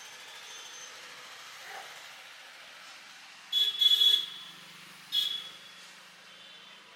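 Background traffic noise with a vehicle horn honking twice: a longer, choppy honk about three and a half seconds in and a short one about a second later.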